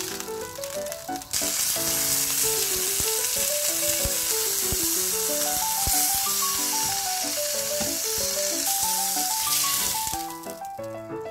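A block of beef searing in hot oil in a frying pan, sizzling steadily. The sizzle swells about a second in and dies away near the end as the meat is lifted out. Background music with a stepping melody plays over it.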